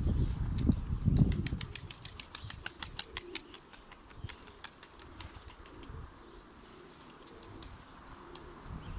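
Domestic pigeons' wings flapping and clapping: a quick run of sharp claps over the first few seconds, then fading. A low rumble, like wind on the microphone, is loudest at the start.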